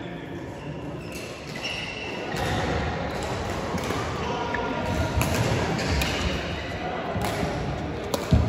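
Game play in a large echoing hall: dull thuds and several sharp knocks, the loudest a sharp knock near the end, with voices in the background.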